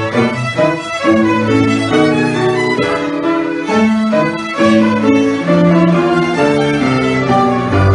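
A string ensemble of several violins and a cello playing a melody together, the violins over held cello notes, with the notes changing about every half second.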